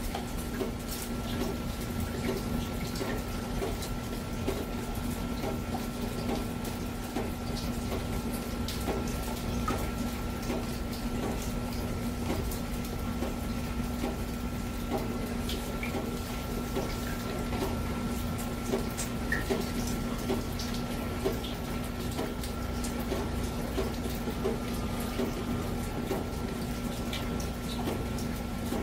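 Water dripping and trickling as a monsoon rain ends, with scattered small drips over a steady low hum and a faint high whine.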